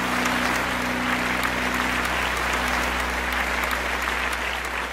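A group of people clapping steadily, over a low held note left ringing from the song's music.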